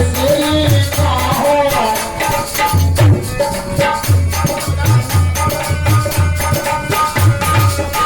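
Instrumental passage of a Bundeli bhajan: a steady rhythm of deep hand-drum beats with a jingling, rattling percussion layer and held keyboard or harmonium tones, a wavering melody line over the first couple of seconds.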